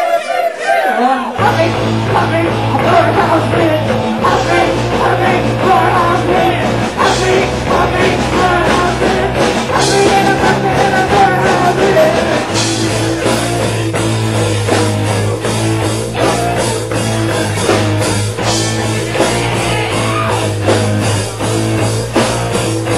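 Rock music playing, with the low bass coming in about a second in and holding steady.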